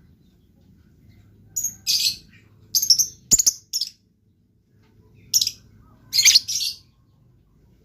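Lovebird chirping in short, shrill bursts, several groups of chirps with pauses between them, and one sharp click in the middle.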